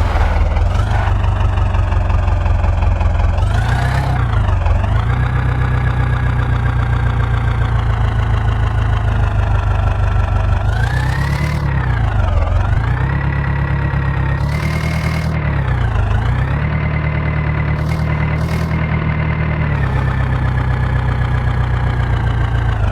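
Diesel engine of a tractor or backhoe loader running steadily, its pitch dropping and climbing back again several times as the engine speed changes.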